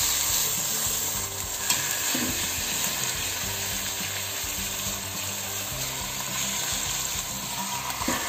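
Chunks of beef sizzling steadily in hot olive oil in a pot as they sear. There is one sharp click about two seconds in.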